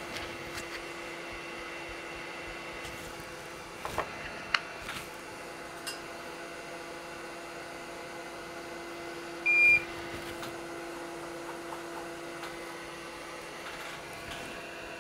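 Steady fan hum of a hot air rework station running on the bench, with a few light clicks of tools being handled. About ten seconds in there is one short, high electronic beep, like a soldering station's.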